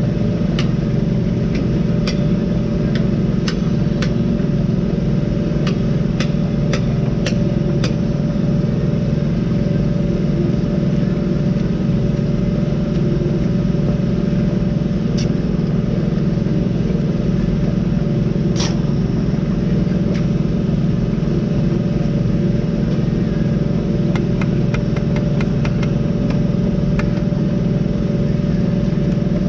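Engine running with a steady drone, with scattered sharp clicks and knocks as concrete trench blocks are handled and set down.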